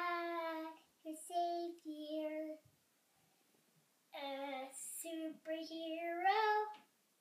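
A young girl singing unaccompanied in a high voice, in held sung phrases, with a pause of about a second and a half near the middle.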